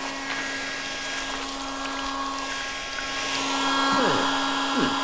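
Handheld hair dryer running with a steady motor hum and a rush of blowing air, blasting the snow away from a kennel doorway. Two short falling swoops come near the end.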